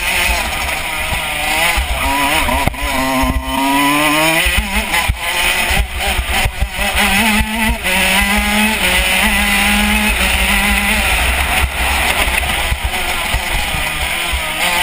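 KZ125 shifter kart's 125 cc two-stroke engine at racing speed, its pitch climbing and dropping several times as it accelerates and slows through the corners.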